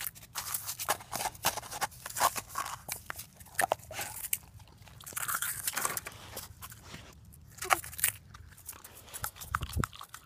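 A dog biting and chewing at hollow plastic Easter eggs, with irregular crisp crunches and clicks.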